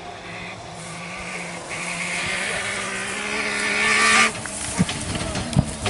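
A rally car approaching at speed, its engine note growing steadily louder, then cutting off abruptly a little past four seconds in, followed by a few sharp knocks.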